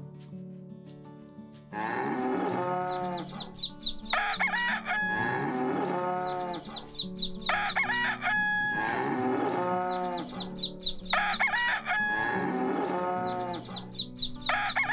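A rooster crowing again and again, about every three and a half seconds, each crow followed by shorter high calls, over quiet background music.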